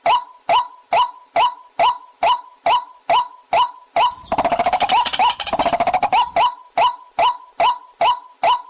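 Recorded waterhen call of the kind played to lure waterhens: a harsh note repeated steadily a little over twice a second, each dropping slightly in pitch. About four seconds in, a fast chattering rattle joins it for about two seconds.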